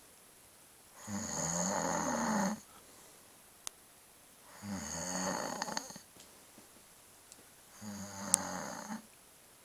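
Snoring: three long, rattling snores about three and a half seconds apart, with quiet breathing pauses between. A brief sharp click comes during the third snore.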